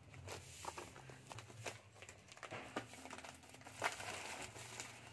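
Faint crinkling and rustling of a plastic parcel wrapper as it is snipped with scissors and pulled open by hand, scattered small crackles with a sharper one about four seconds in.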